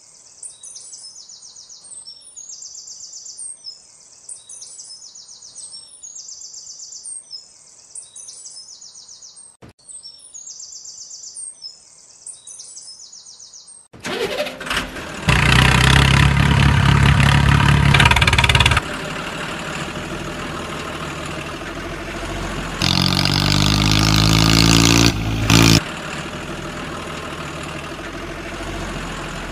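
High chirping calls repeating about once a second, then about halfway through a loud truck engine sound starts suddenly and runs, revving with a rising pitch about three quarters through.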